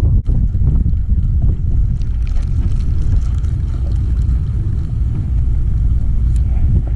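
Steady low rumble of wind buffeting the microphone on an open jon boat, with a brief drop-out about a quarter second in.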